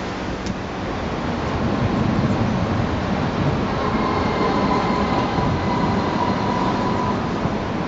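Train running: a steady rumbling noise, with a faint high whine that comes in about halfway through and fades out near the end.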